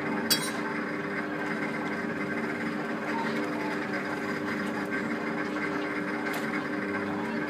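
Steady hum and whir of a suspended monorail ride car's drive running along its overhead track, with a sharp click about a third of a second in and a fainter one near six seconds.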